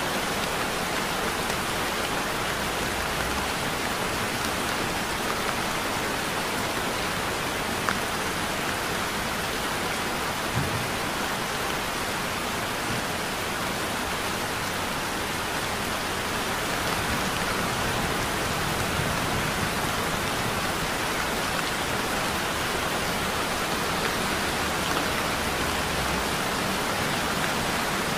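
Heavy rain falling steadily, an even hiss with a couple of single ticks about eight and ten seconds in.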